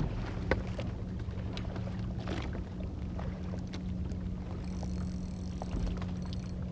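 Small boat's motor running at a steady low hum, with scattered light clicks and knocks and one sharp click about half a second in.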